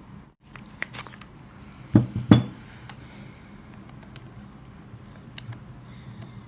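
Hard objects being handled on a workbench: scattered light clicks and clinks, with two sharp knocks close together about two seconds in.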